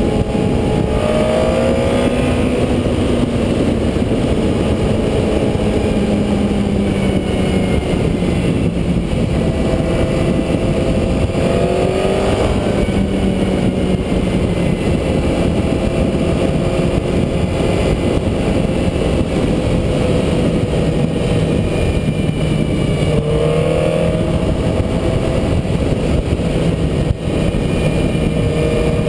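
Honda CBR954RR's inline-four engine under way, its pitch rising three times (about a second in, near the middle, and near the end) and easing off slowly between, under heavy wind rush on the bike-mounted camera.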